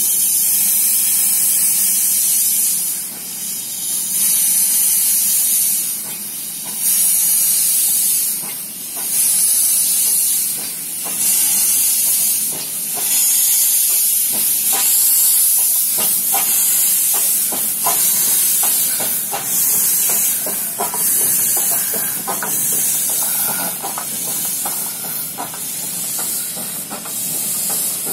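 A Nilgiri Mountain Railway X-class steam locomotive moving slowly, hissing steam in long puffs that swell and fade every two to three seconds. From about halfway through, quick metallic clanks and knocks come in under the hiss.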